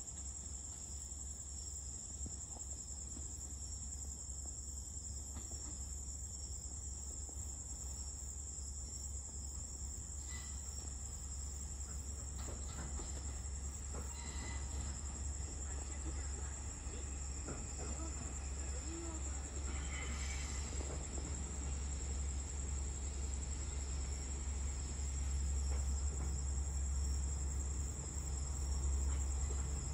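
Crickets chirring in a steady high-pitched drone, over a low rumble that grows louder toward the end as a diesel railcar approaches the station.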